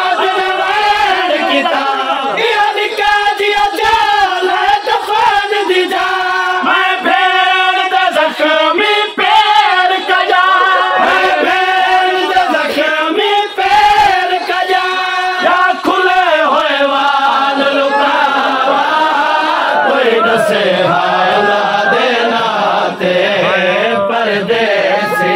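A noha, a Shia lament, chanted by a male reciter with a crowd of men singing along.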